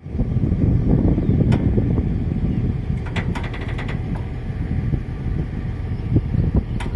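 Excavator's diesel engine running steadily in a low rumble, with a few sharp metallic clicks and a quick rattle of ticks about halfway through.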